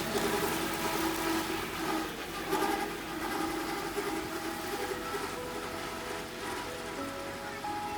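Background music with held melody notes over the steady running of a tractor mowing hay.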